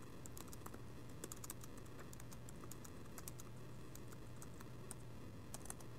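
Typing on a computer keyboard: a run of quick, faint key clicks, uneven in rhythm, over a low steady hum.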